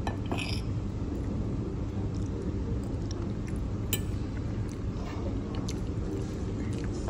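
Metal fork scraping and tapping on a ceramic plate while picking up pasta in cream sauce: a brief high squeak near the start and a sharp clink about four seconds in, over a steady low background hum.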